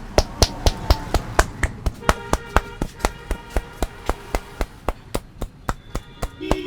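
Head massage with rapid hand strikes on the head, a steady run of sharp slaps at about four a second.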